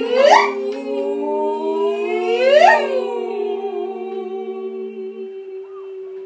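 Women's a cappella improv vocal ensemble holding several long, overlapping sustained notes together. Twice, a voice sweeps sharply upward in a whooping glide, right at the start and again about two and a half seconds in. The lowest note drops out near the end while the others carry on.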